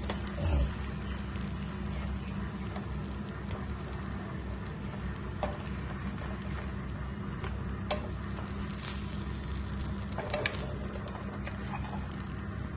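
Egg-and-bread omelette frying in a pan, with a steady sizzle. A wooden spatula scrapes and taps against the pan a few times as it presses and folds the omelette.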